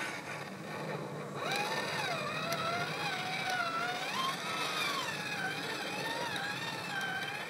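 Electric motor and gear drive of a 1/8-scale 4x4 RC crawler whining as it climbs rock, the pitch rising and falling smoothly as the throttle is worked; the whine sets in about a second and a half in.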